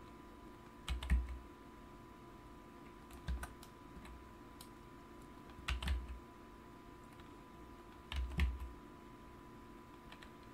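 Computer mouse buttons and keyboard keys clicking in four short clusters, about two and a half seconds apart, each with a dull knock, over a faint steady hum.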